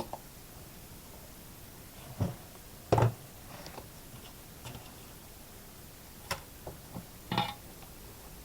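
A few separate light knocks and clicks of tools and wire being handled on a workbench while a battery lead is tinned with a soldering iron. The loudest knock comes about three seconds in.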